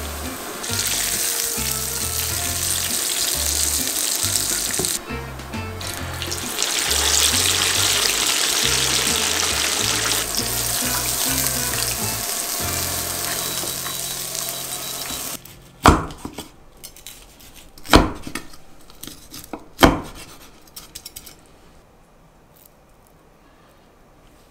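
Starch-coated pork jowl deep-frying in a small pot of hot oil: a loud, steady sizzle, with background music and a bass line underneath. About fifteen seconds in the sizzle stops, and three sharp cracks follow about two seconds apart.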